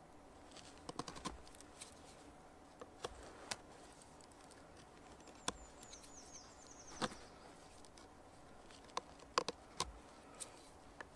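Knife whittling a small piece of wood: irregular, faint clicks and scrapes of the blade cutting. About halfway through, a songbird gives a short, high run of falling chirps.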